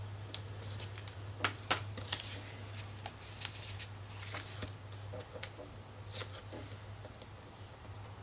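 Patterned paper and double-sided tape being handled by hand: scattered light crackles and rustles as the tape's backing is picked off and the paper pressed down, over a steady low electrical hum.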